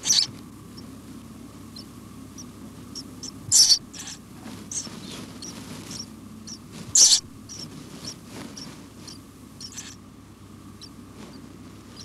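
House sparrow nestlings, about nine days old, giving short high squeaks and peeps in the nest, three of them louder (right at the start, at about three and a half seconds, and at about seven seconds), over a low steady hum.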